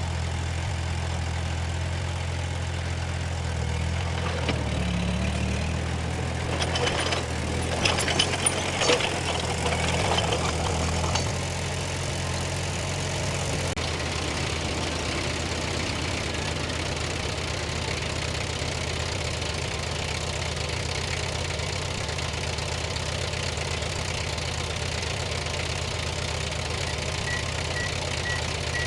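A heavy earthmoving machine's diesel engine running steadily, with a stretch of clanks and rattles between about four and eleven seconds in. Near the end a reversing alarm starts beeping.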